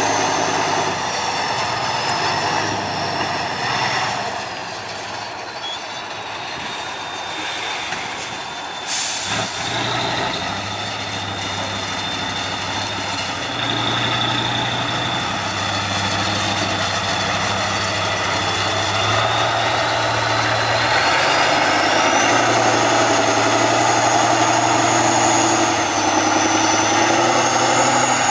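Tatra 815 6x6 trial truck's diesel engine working under load off-road. The engine speed changes in steps, with a high whistle that rises and falls with it and one sharp knock about nine seconds in. It gets louder in the last third as the engine is pushed harder up the slope.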